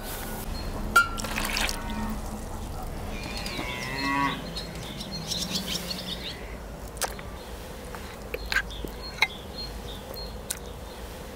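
A cow mooing, loudest a few seconds in, followed by several light clinks of a metal spoon stirring cream in a plastic bowl.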